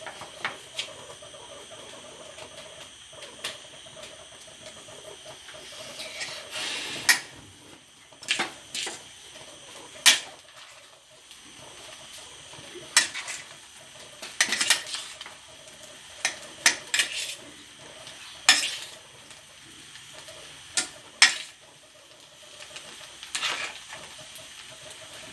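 A spatula scraping and knocking against a pan as stir-fried noodles are mixed with tomato sauce, in irregular clinks and scrapes.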